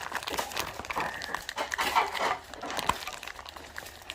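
Rustling of toy packaging being handled, with scattered small clicks and taps.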